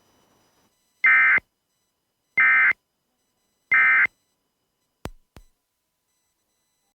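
Emergency Alert System end-of-message data bursts: three short, identical buzzing squawks of the SAME digital code, evenly spaced about a second and a third apart, marking the end of the alert. Two faint clicks follow about a second after the last burst.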